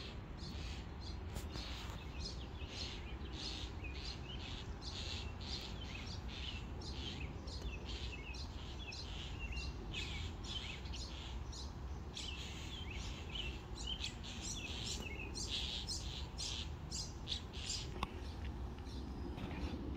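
Songbirds chirping busily, many short high calls in quick succession, over a low steady rumble.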